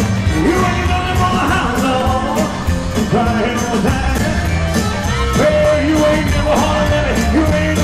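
Live band playing 1950s-style rock and roll with a steady, fast drum beat and a melody line bending over it.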